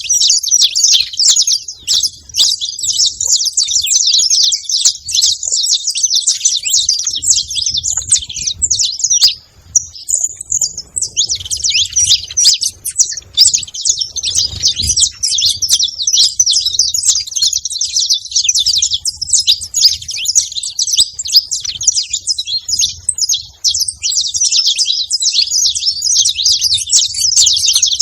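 Saffron finches chattering: a dense run of rapid, overlapping high chirps, broken by a brief lull about a third of the way in.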